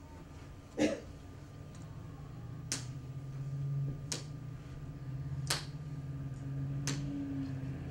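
Five sharp clicks about a second and a half apart, the first a heavier thump and the loudest, over a steady low hum.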